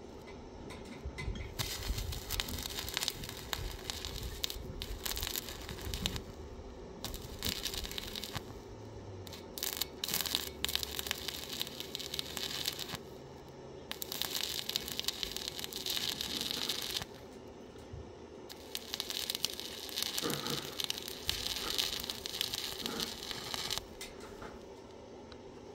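Stick welding on a steel box-section tube with a small inverter arc welder: the arc crackles and sizzles in four runs of a few seconds each, with short pauses between them, and stops shortly before the end.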